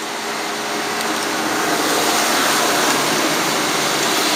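A gust of wind: a steady rushing noise that grows louder over the first couple of seconds and then holds.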